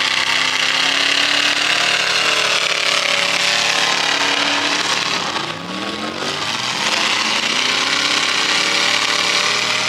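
Demolition derby car engines revving hard, their pitch rising and falling as the cars accelerate and manoeuvre, with one rev climbing sharply about halfway through.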